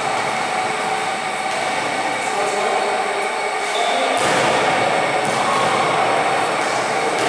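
Pickup basketball game echoing in a large gym: players' voices and play over a steady noisy hum, which grows deeper and louder about four seconds in.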